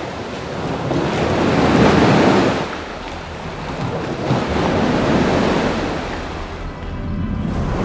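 Water churning and rushing in an indoor static rowing tank as the oar blades pull through it, swelling and easing in surges with the strokes.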